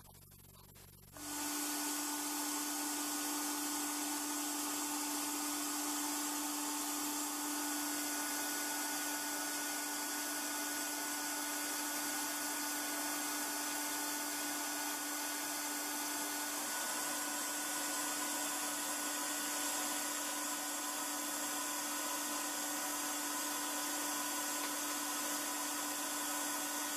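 A dust-extraction vacuum and an air-abrasive unit running. It starts about a second in and holds steady: a dense hiss with a constant motor hum.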